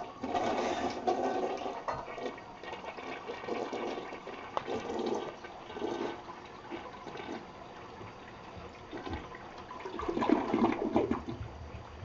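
Toilet flushing: water rushing and gurgling through the bowl, loudest in the first couple of seconds, settling to a steadier run, then swelling again about ten seconds in.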